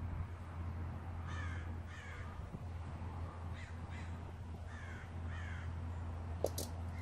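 Crows cawing: short, harsh calls that slide downward, coming in pairs several times, over a steady low hum. A few sharp clicks near the end.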